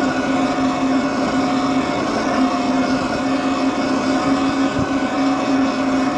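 Electric bike's motor whining at a steady pitch while cruising, over a rush of wind and road noise.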